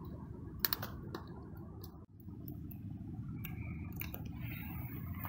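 Wood fire burning in a homemade steel rocket stove: a steady low rush with a few sharp crackles of burning wood. The stove is lit but not yet in full rocket mode. A brief dropout about two seconds in.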